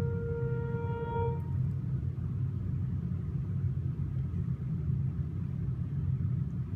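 A steady low rumble, with a sustained ringing tone over it that stops about a second and a half in.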